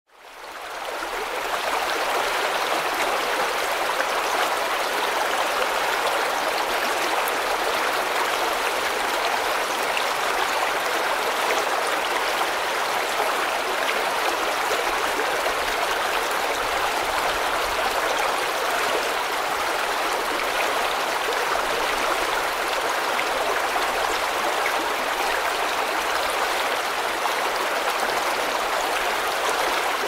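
Small river flowing, a steady, even rush of water with little low rumble, fading in over the first second or so.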